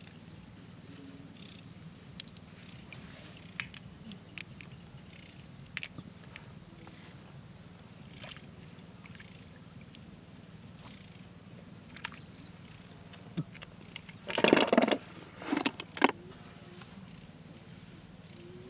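Hands rustling and scraping through waterside grass, with scattered small clicks, over a steady low hum. The loudest rustling comes in two short bursts about three-quarters of the way through.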